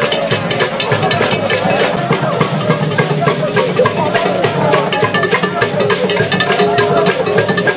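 Traditional drum and percussion music with a dense, fast, steady beat, and voices singing over it.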